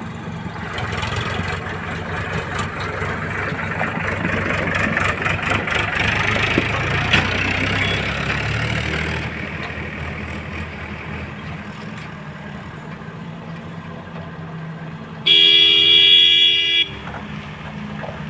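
Diesel engine of heavy farm or earthmoving machinery running, louder and working harder for the first several seconds before easing back to a steady run. A vehicle horn sounds once, for about a second and a half, near the end.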